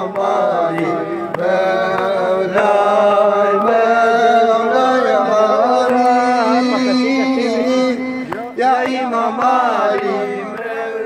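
Men's voices singing a Shia mourning lament (nauha) in long, held and wavering notes, with regular slaps of hands on chests (matam) keeping the beat.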